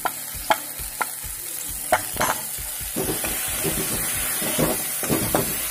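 Chopped onion, capsicum and spices sizzling in hot oil in a metal kadai. A metal spatula clicks sharply a few times in the first couple of seconds, then scrapes and stirs in quick repeated strokes from about three seconds in.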